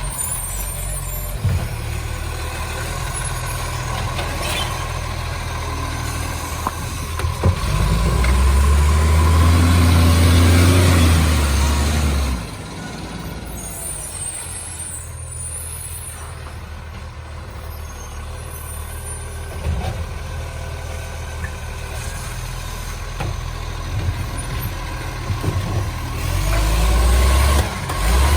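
Garbage truck's engine running, swelling into a loud low rumble for a few seconds around the middle and again near the end, with a hiss of air from its air brakes just after the first surge.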